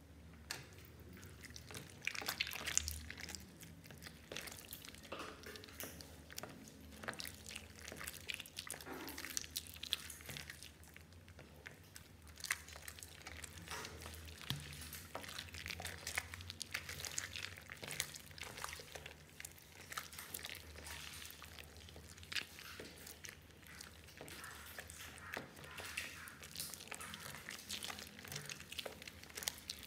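Wet clear glue slime being worked by hand in a glass bowl: a steady run of irregular sticky squelches, clicks and small bubble pops as it is squeezed and stirred.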